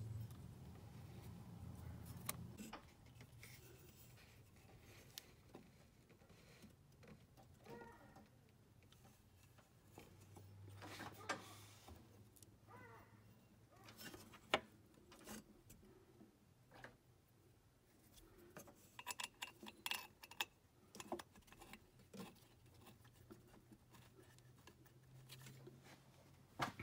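Near silence broken by scattered faint clicks and light metallic rattles of parts being handled as a new aluminium water pump is set against its gasket on the engine block; the clicks come closer together a little past the middle, over a faint low hum.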